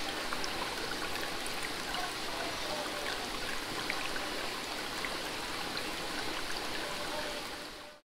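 Water running steadily in a trout hatchery box, with small drips and splashes, as a hose siphons the fry out. It fades out near the end.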